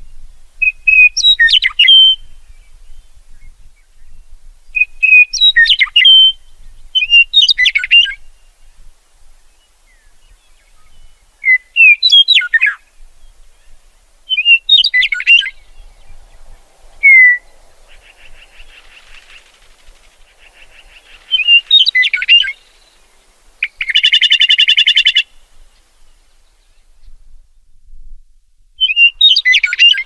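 Meadowlark singing: short song phrases of about a second, each opening on a clear note and tumbling down in pitch, repeated every few seconds. About three-quarters of the way through comes a harsh, buzzy rattle call.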